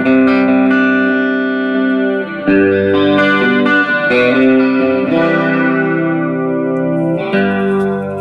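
Electric guitar playing clean chords, each let ring for a second or two, through a homemade 1-watt MOSFET light-bulb amplifier driven by a Boss multi-effects unit set for a clean tone with compression, reverb and chorus.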